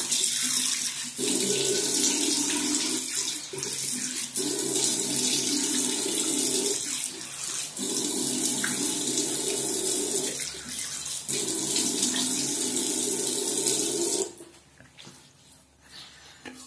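Water running from a tap into a sink while a man splashes it onto his face, fuller in several stretches with short breaks between. The water stops about fourteen seconds in.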